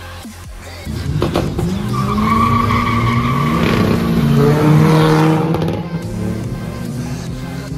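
Two cars launching from a drag-strip start line and accelerating hard side by side, one of them a Seat Ibiza with a 1.9 TDI diesel engine. The engines rise in pitch, drop at a gear change and climb again, then ease off after about five seconds.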